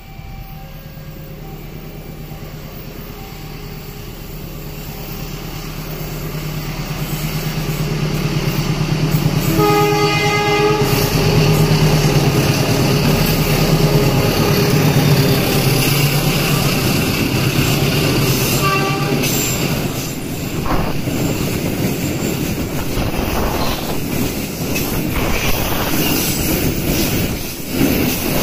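Diesel locomotive hauling an oil tank train, its engine drone growing louder as it approaches, with one horn blast of about a second and a half roughly ten seconds in. Then the tank wagons roll past with wheel clatter and some squealing.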